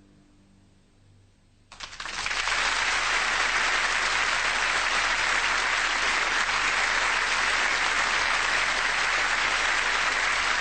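Audience applause that breaks out suddenly about two seconds in, after the last faint notes of the song have died away, and then goes on steadily.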